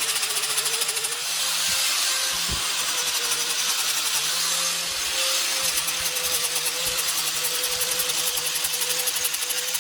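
5-inch electric grinder fitted with 80-grit sanding paper, running steadily with a constant motor whine and the hiss of the abrasive sanding the carved wood.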